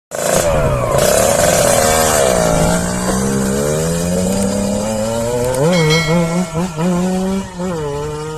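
Yamaha RX-King two-stroke motorcycle engine being ridden hard, its pitch climbing and dropping through the revs with several quick rev changes in the second half. The sound starts to fade near the end.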